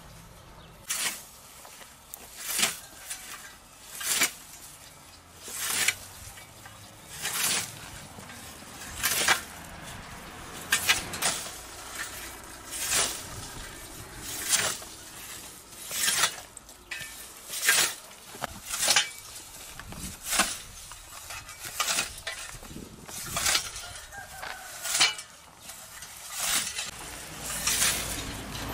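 Hand scythe cutting dry roadside weeds and grass: a swish with each stroke, in a steady rhythm of about one stroke every second and a half.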